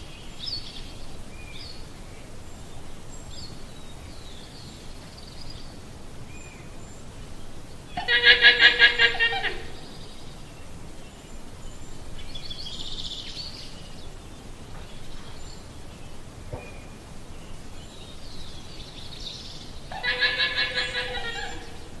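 Llama calling twice, each a high, rapidly quavering call about a second and a half long, the second near the end. Faint bird chirps in the background between the calls.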